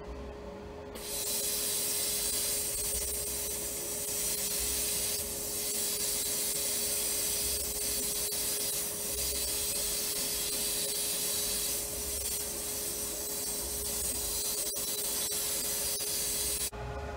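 Sandblast cabinet gun blasting abrasive at a rusty steel pipe fitting: a steady loud hiss of air and grit that starts about a second in and cuts off near the end. The builder finds the blast still lacks power.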